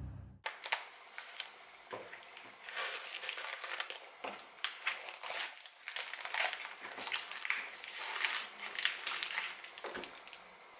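Plastic food packaging crinkling and rustling as packs of spring roll wrappers, wrapped cheese slices and vacuum-packed chicken are handled and set down, with light knocks on a metal counter.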